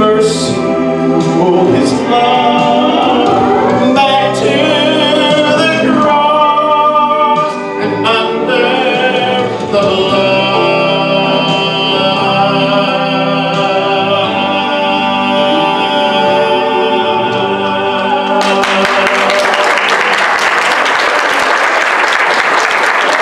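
A man sings the closing passage of a gospel song into a microphone with musical accompaniment. The music ends about 18 seconds in, and applause follows.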